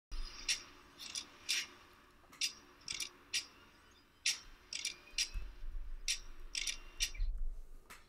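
Sharp metallic clicks and snips, about a dozen, many in quick pairs, with a low rumble under the later ones. It is a lock-mechanism style sound effect.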